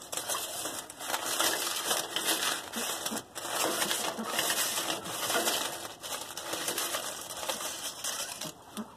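Dry leaves and stubble rustling and crackling as a doe rabbit grabs them in her mouth, gathering nesting material. It is an uneven crackle with a couple of short pauses.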